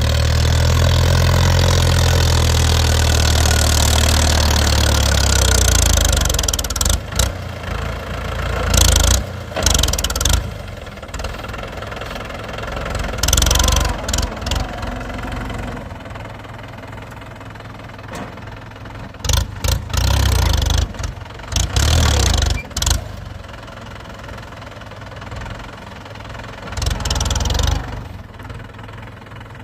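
Tractor diesel engine with a modified silencer running loud and steady, then dropping to a quieter run about six seconds in. Irregular short loud bursts follow.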